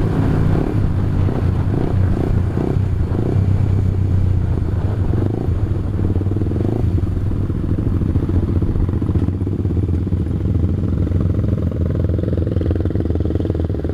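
Motorcycle engine running at a steady low pitch, pulsing for the first three seconds or so, then even.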